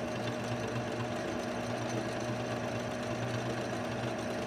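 Electric sewing machine running steadily at fast speed, stitching a straight seam along a pillow's edge without pausing.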